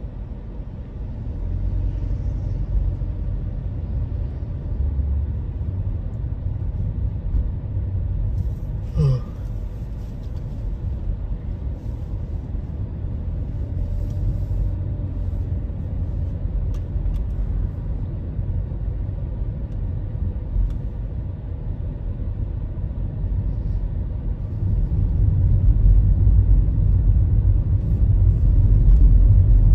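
Car driving, heard from inside the cabin: a steady low rumble of engine and road, growing louder for the last few seconds. A brief higher-pitched sound cuts in about nine seconds in.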